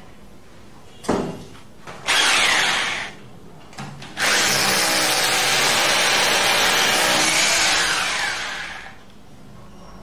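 Electric hammer drill with a masonry bit boring into a plaster wall: two short bursts of running, then a steady run of about four and a half seconds that winds down near the end.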